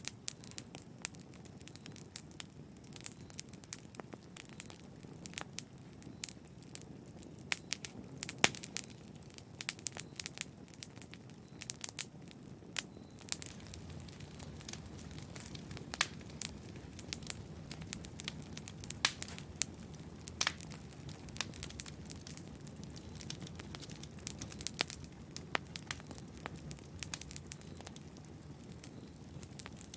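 Wood fire crackling in a fireplace: frequent sharp pops and snaps over a soft low rumble of the flames.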